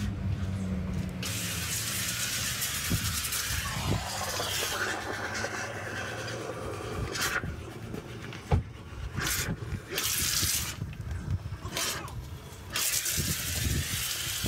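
Pressure-washer foam lance spraying snow foam onto a car, hissing in several bursts as the trigger is pulled and released: one long burst early, short ones in the middle, another near the end. A single sharp knock comes a little past the middle.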